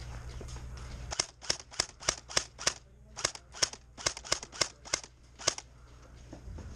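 A string of about fifteen sharp snaps of airsoft fire, a few a second and unevenly spaced. They start about a second in and stop about five and a half seconds in.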